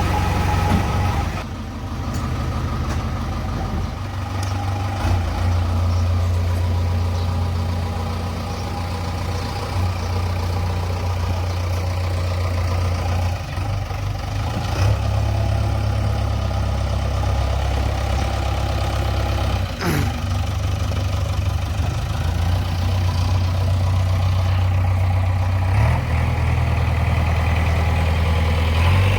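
JCB backhoe loader's diesel engine running steadily, with small shifts in engine speed.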